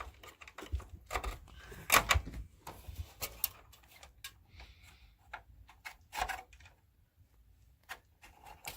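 Irregular plastic and metal clicks and knocks as parts inside a desktop PC are handled while a DDR3 memory stick is fitted. The clicks cluster in the first few seconds, with a few more about six seconds in.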